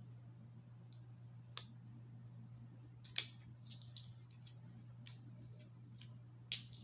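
Plastic shrink wrap being picked at and peeled off a roll of washi tape by hand: scattered sharp crinkles and clicks, a few each second, over a steady low hum.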